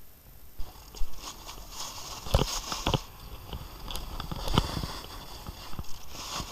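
Snowboard scraping and sliding over packed snow as the rider sets off downhill, with a few sharp knocks on the camera along the way.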